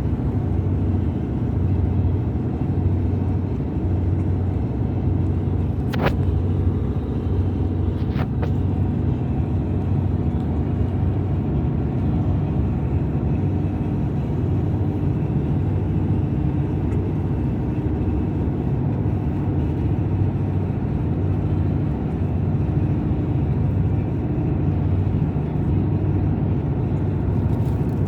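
Steady road and engine noise inside a moving car's cabin. A brief sharp click about six seconds in and two more about two seconds later.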